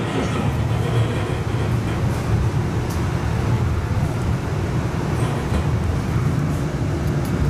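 Cabin noise of a Siemens S70 streetcar moving along the track: a steady low rumble.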